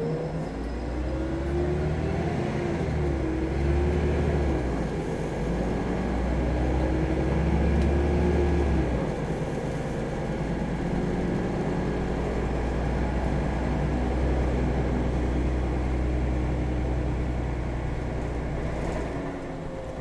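City bus engine and drivetrain heard from inside the bus as it pulls away from a stop and picks up speed. The engine note rises and bends with gear changes in the first few seconds, then settles to a steadier drone from about nine seconds in.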